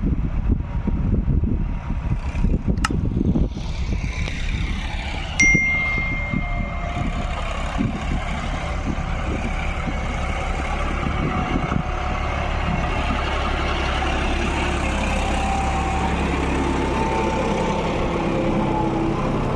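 John Deere 5210 tractor's diesel engine running steadily while ploughing. Wind buffets the microphone in the first few seconds, and a short high-pitched tone sounds about five seconds in.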